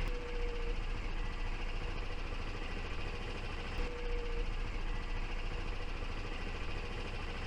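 Steady low hum and rumble of a vehicle driving slowly, with a faint steady whine that comes and goes.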